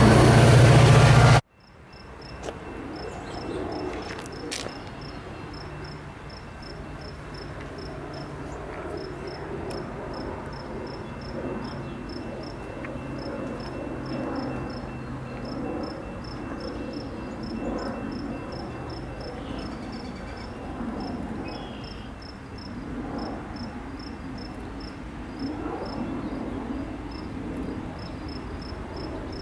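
A passing Metra train runs loudly close by and cuts off sharply about a second and a half in. Then crickets chirp in an even pulse of about three a second, over the low rumble of a distant freight train drawing slowly closer.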